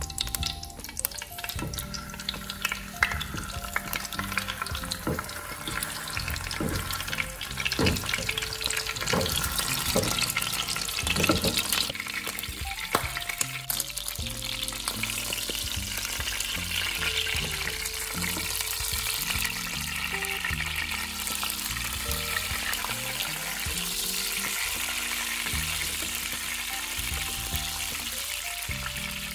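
Smoked rainbow trout frying in hot oil in a pan: a steady sizzle with sharp crackling pops, busiest in the first half.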